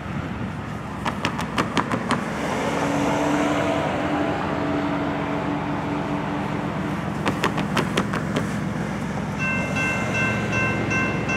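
Distant approaching freight train with a rumble, and a steady low horn note from about two and a half to six and a half seconds in. Near the end the grade-crossing warning bell starts up, a high electronic ding repeating quickly and steadily, the sign that the crossing signals have been triggered by the oncoming train. Two short runs of quick clicks come about a second in and about seven seconds in.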